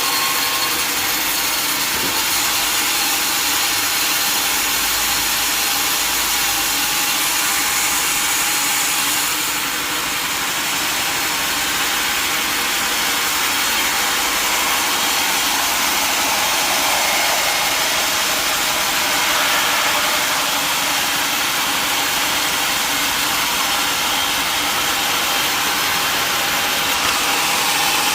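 Sawmill running steadily, its saw cutting through mahogany wood with an unbroken high-pitched noise.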